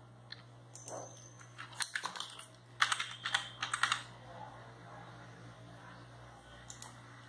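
Typing on a computer keyboard: a few scattered keystrokes, then a quick run of keys about three seconds in, and a couple of faint clicks near the end.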